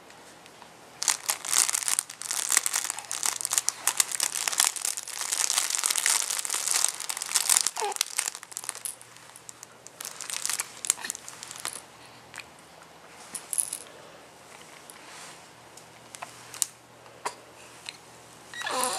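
Crinkle fabric of a baby play mat rustling and crackling in dense bursts for about the first twelve seconds, then in sparser crinkles. A newborn makes a short rising squeak near the end.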